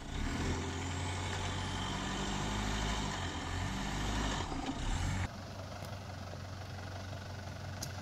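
Off-road pickup truck engine running steadily under light throttle. About five seconds in the sound drops suddenly and the engine runs on more quietly.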